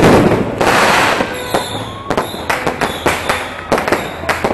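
Fireworks going off: a loud bang at the start, a dense crackle over the next second, then a rapid run of sharp bangs and pops.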